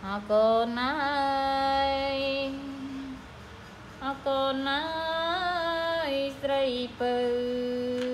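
A woman singing a slow lullaby without clear words, in long held notes, in three phrases with short breaks between them.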